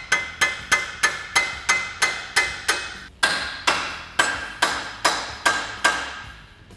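Hammer blows driving a tight steel track bar bracket onto a Jeep Wrangler JK's axle: steady strikes about three a second, each with a metallic ring. There is a brief pause about three seconds in, and the hammering stops about six seconds in.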